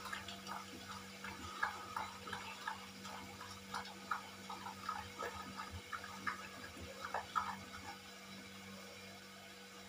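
Light, irregular tapping and clatter of kitchen utensils, several taps a second, stopping about two seconds before the end, over a steady low hum.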